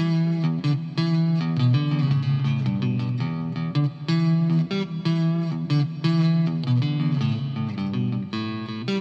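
Electric guitar, a Stratocaster with Fender N3 Noiseless pickups, being played: chords strummed in a steady rhythm, with short breaks between phrases.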